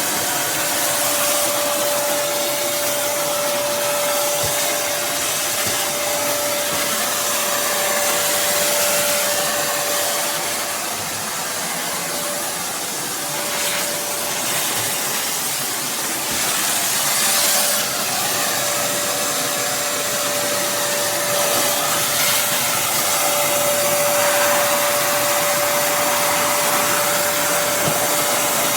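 Kärcher WD 2 Plus wet-and-dry vacuum cleaner running: a steady motor whine over the rushing of suction air, a little quieter for a few seconds about halfway through.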